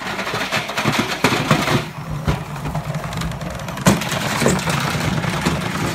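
Tricity Bendix 1000 washing machine running flat out, a steady motor hum under a constant irregular clatter and knocking as the machine shakes itself apart, with one sharp bang about four seconds in.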